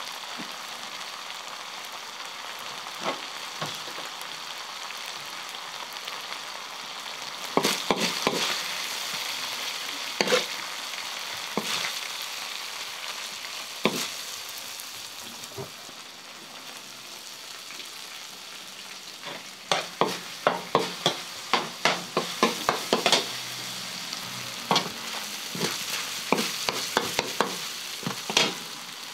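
Minced meat sizzling on a large steel tantuni griddle, with a metal spoon clinking and scraping against the pan. The strikes are scattered at first, then come in quick runs about two-thirds of the way through and again near the end.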